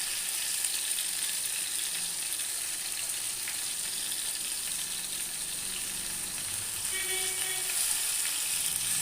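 Spice-marinated chicken pieces shallow-frying in hot oil on a tawa, sizzling steadily.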